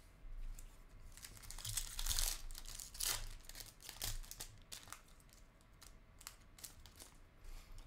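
Foil wrapper of a Bowman University Chrome basketball card pack being torn open and crinkled, in a few irregular crackling bursts, loudest about two seconds in.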